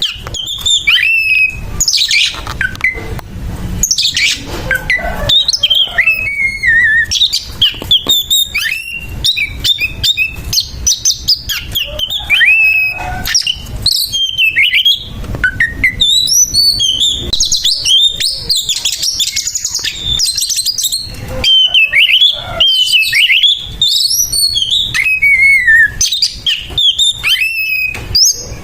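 Oriental magpie-robin (kacer) singing a loud, rapid, harsh fighting song: a continuous run of varied whistles, glides and chattering clicks. It is the aggressive 'tarung' song a male gives against a rival.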